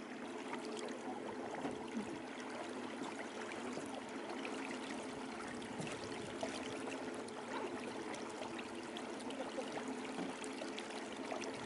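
Steady, faint wash of calm water along the hull of a small boat moving slowly, with a faint steady hum underneath.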